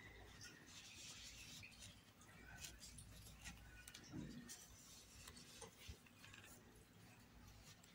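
Near silence, with faint rustling and a few light ticks from an 8 mm crochet hook working chunky t-shirt yarn (fio de malha).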